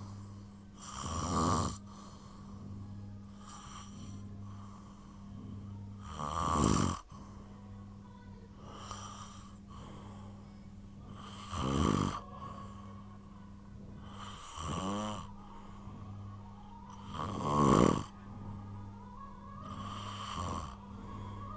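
A person snoring on purpose, in slow regular breaths: a loud snore about every five and a half seconds, with a softer snore halfway between each pair.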